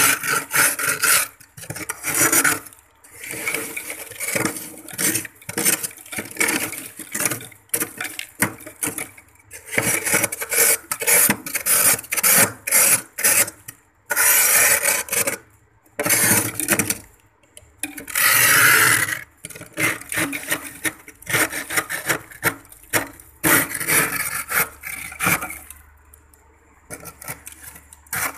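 A handheld scraper scraping thick frost and ice off the inside walls of a freezer, in runs of quick strokes with one longer stroke a little past the middle. The strokes grow lighter and sparser near the end.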